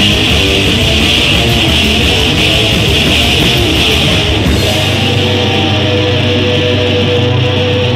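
Live rock band with distorted electric guitars and drums playing loudly. About halfway through, the cymbals drop away and the guitars hold ringing notes.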